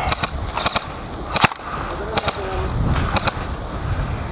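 Airsoft guns firing: about eight or nine sharp cracks at uneven intervals, some in quick pairs.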